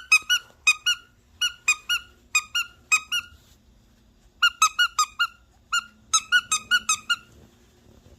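A dog's new squeaky toy squeaking under her bite: short, sharp squeaks, each dipping in pitch, in two quick runs of about a dozen each with a pause of about a second between.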